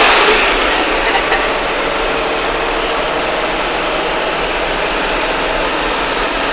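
A car on the move: steady engine and road noise at an even level.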